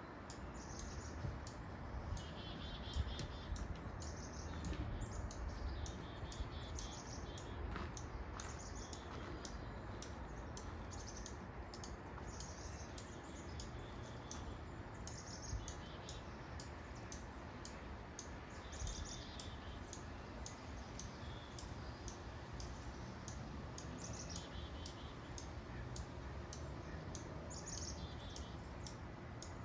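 Small birds chirping in short repeated phrases every second or two, with frequent faint clicks over a steady low background rumble.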